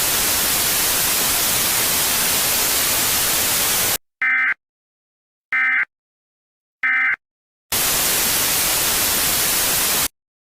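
Loud static hiss, then three short EAS end-of-message (SAME 'NNNN') data bursts about a second and a half apart, then the static again, which cuts off suddenly.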